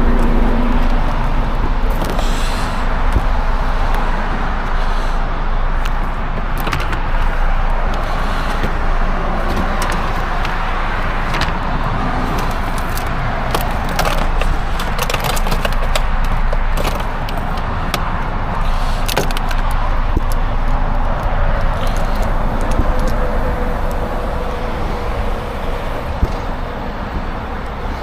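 Steady roadside traffic noise with vehicles passing, broken by scattered clicks and knocks.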